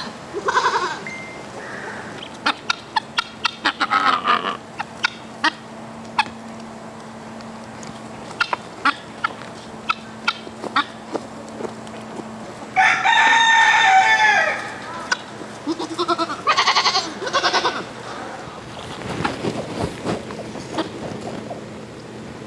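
Farmyard poultry calling: a rooster crows once, loud, about halfway through. Around it run clucking and clusters of short, sharp calls from the flock, and a goat bleats near the start.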